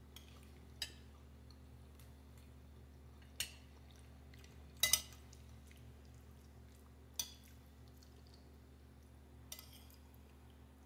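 Metal spoon clinking and scraping against a ceramic plate while scooping pasta: a few separate sharp clinks a couple of seconds apart, with a quick double clink near the middle.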